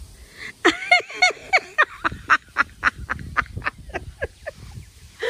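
A rapid string of short, pitched animal calls, a few each second, starting just under a second in and dying away before the end.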